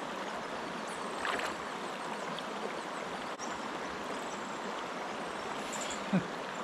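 Creek water running steadily over rocks. There is a brief splash-like sound about a second in and a short low thump near the end, which is the loudest moment.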